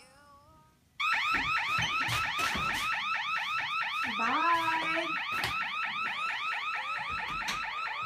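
Electronic burglar alarm siren going off, a loud fast-repeating rising whoop several times a second. It starts suddenly about a second in and sounds steadily.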